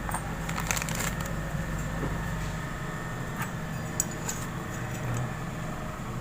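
Scattered light clicks and rustles of small metal parts being handled, over a steady low hum.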